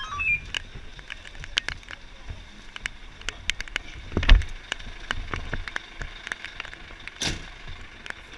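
Rustling gear and scattered clicks and knocks as a firefighter climbs out of a fire engine's crew cab, with a heavy thump about four seconds in as he steps down, and another sharp knock near the end.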